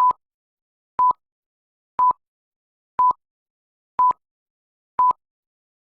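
Six short electronic beeps, one each second, all on the same steady pitch, with dead silence between them: the sync beeps of a video countdown leader.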